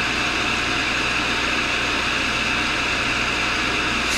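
Tool and cutter grinder's wheel-head motor running steadily, the grinding wheel spinning at speed without cutting, a steady hum and whir.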